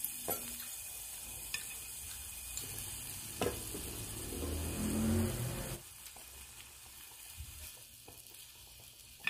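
Slices of pork sizzling on a hot round grill plate, a steady hiss, with a few sharp clicks of metal tongs against the plate. A low rumble of handling swells about midway and cuts off sharply a little after.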